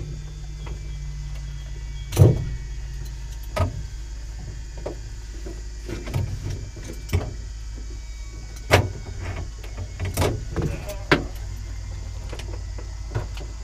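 Scattered clicks and knocks in the cockpit of a parked light aircraft with its engine shut down: the pilot moving about and handling his headset and fittings. A steady low hum runs underneath.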